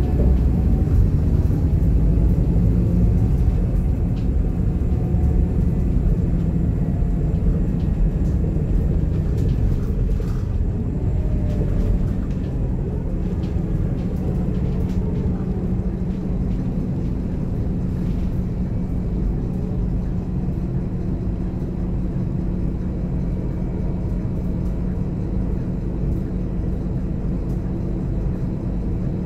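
Scania DC9 five-cylinder diesel and ZF Ecomat automatic driveline heard from inside the coach's cabin: a steady low drone, with a whine that falls in pitch near the start, then a slightly quieter, even drone.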